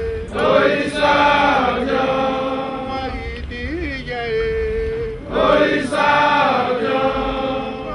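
Men chanting together in two loud phrases, one starting about half a second in and another about five seconds in. Between them a single voice holds a long steady note.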